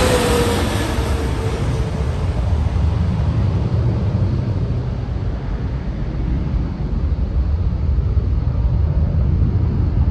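GE90 engines of a Boeing 777-300ER passing low overhead. The engine whine falls in pitch and fades over the first two seconds, leaving a steady low rumble as the jet recedes toward the runway.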